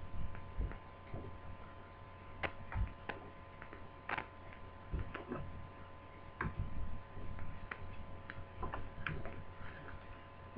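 Scattered light clicks and taps from handling a laptop LCD screen panel and its small plastic parts and connectors, at irregular intervals over a faint steady electrical hum.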